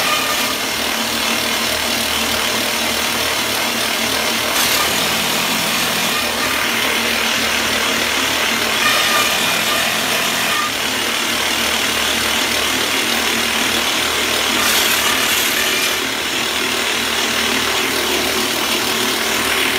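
Hydraulic rock drilling rig's boom-mounted drill boring into a rock face: a loud, steady drilling noise.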